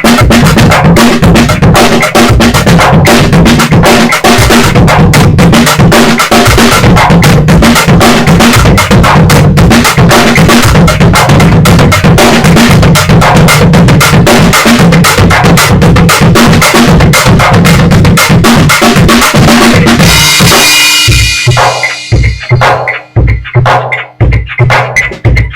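Mini drum kit played with Hot Rods over a backing track: a busy groove of bass drum, snare and rimshots. After about twenty seconds the groove stops on a cymbal crash that rings out, followed by scattered single drum hits.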